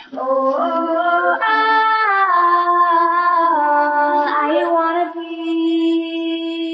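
Background song: a female voice sings a drawn-out wordless melody that climbs in steps, falls back, and ends on a long held note.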